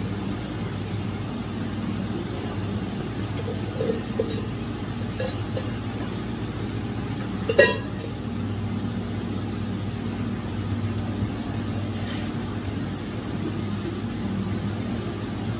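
A steady low mechanical hum, with a few light taps and one sharp, ringing metal clink about halfway through as a steel utensil strikes metal cookware while flatbread is cooked on a griddle.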